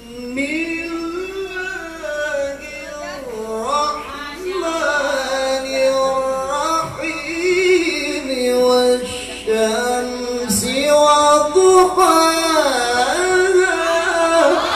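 A man's voice in melodic Quran recitation (tilawah), amplified through a handheld microphone. It holds one long ornamented phrase after another, the pitch sliding and wavering up and down through many turns.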